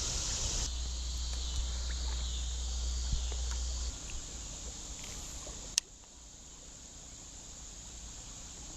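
Insects chirring steadily in the background, with a low rumble over the first four seconds and one sharp click about six seconds in.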